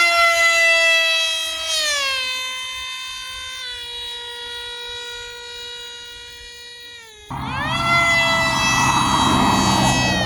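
The 2215-size 1200 kV brushless electric motor of a radio-controlled F-35 model plane whines at changing throttle. Its pitch rises, holds, then steps down twice before it cuts off about seven seconds in. It comes back on with a rising whine over a rushing noise.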